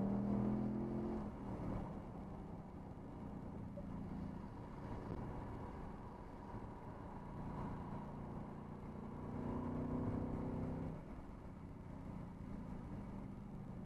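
Car engine heard from inside the cabin while lapping a track: under throttle at first and easing off about a second in, leaving steady tyre and wind noise, then pulling again for a second or two near the end before lifting off.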